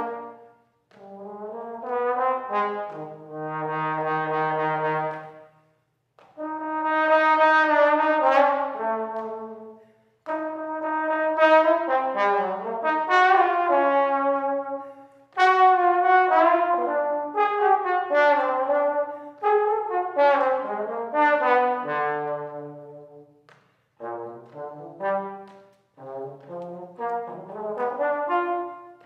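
Unaccompanied trombone playing a melodic solo, one note at a time, in phrases of a few seconds with short breaks between them.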